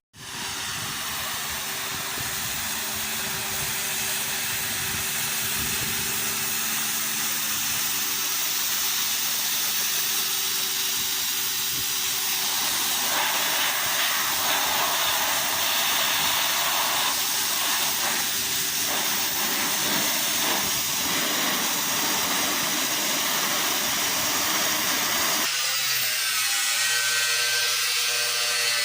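Pressure washer running and spraying: a steady hiss of water jet over the hum of its motor and pump. The sound changes abruptly near the end.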